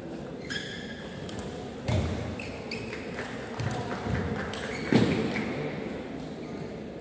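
Echoing table tennis hall sounds: short high squeaks in the first second, then several muffled thuds and indistinct voices, the loudest thud about five seconds in. There are a few light ball-like taps among them.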